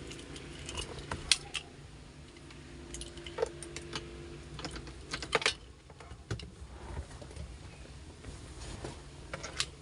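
Irregular light clicks and taps, a few sharper ones, over a faint steady low hum.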